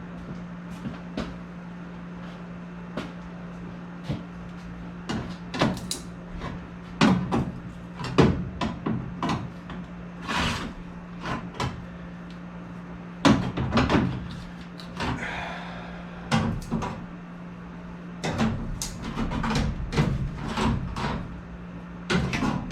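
Irregular sheet-metal clanks and knocks as the sheet-metal flanges at a new evaporator coil are bent by hand for fitting, with the loudest bangs about a third of the way in and just past halfway, over a steady low hum.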